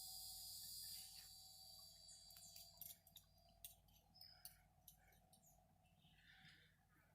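A cicada's high, steady buzz, dying away over the first few seconds, followed by faint scattered clicks.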